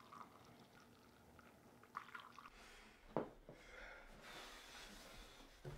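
Coffee poured from a carafe into a ceramic mug, a faint trickle, with a single sharp knock about three seconds in.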